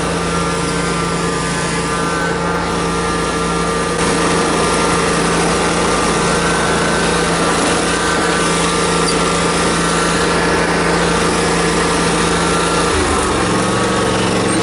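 Commercial walk-behind lawn mower running steadily at cutting speed, with a slight shift in engine pitch near the end.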